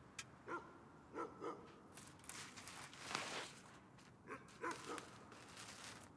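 A dog barking faintly in short barks, in pairs and threes, with a soft rustling swell between the groups.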